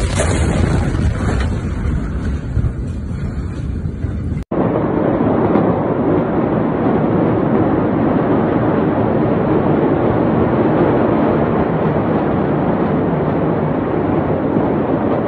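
Steady rushing noise of wind buffeting a phone's microphone. It follows a jumbled stretch of handling noise from the swinging phone, which cuts off abruptly about four seconds in.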